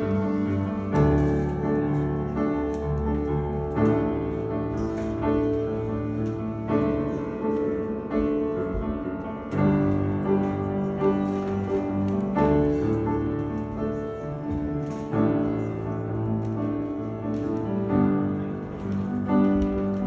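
Upright piano being played: slow chords, each held for a second or more before the next is struck.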